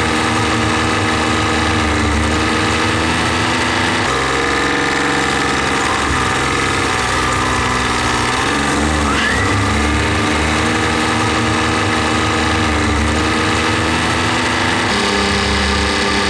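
John Deere tractor's diesel engine running steadily as the tractor drives along. Its note shifts about four seconds in, dips and rises around the middle, and changes again near the end.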